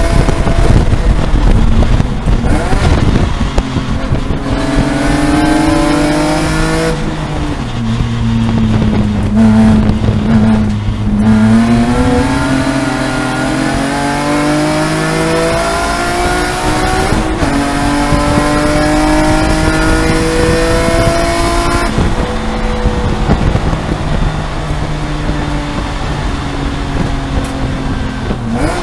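BMW E46 M3 race car's S54 3.2-litre straight-six, heard from inside the cockpit under racing load. Its pitch falls as the car slows from about 100 mph into a slow corner, bottoming out around ten seconds in, then climbs again through upshifts as it accelerates away.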